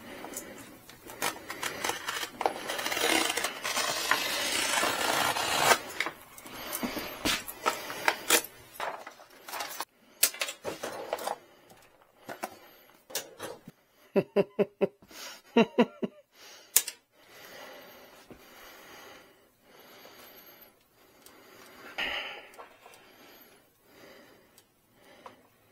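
Perforated vinyl decal sheet being handled: crinkling and rustling with many small clicks, then scattered sharp taps and clicks, a quick run of short squeaks a little past halfway, and softer rustles near the end.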